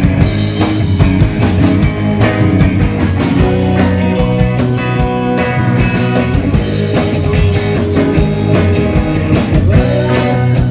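Live rock band playing: electric guitar over a drum kit with steady drum and cymbal hits.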